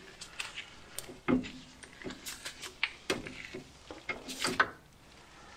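Irregular metallic clinks and knocks of a wrench and socket working the spring-plate bolts of a Jaguar XJ front suspension, the loudest a sharp knock about a second in.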